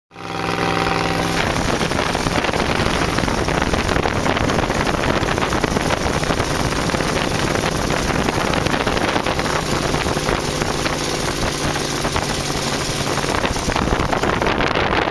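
Open dune buggy's engine running as it drives over sand dunes, with wind rushing over the microphone; the engine note is clear in the first second or so, then mostly covered by the steady rush of wind.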